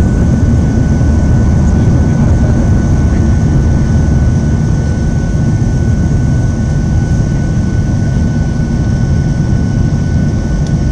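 Boeing 737-800's CFM56-7B turbofan engines at climb thrust, heard from inside the cabin over the wing: a loud, steady low rumble with a thin, steady high whine on top.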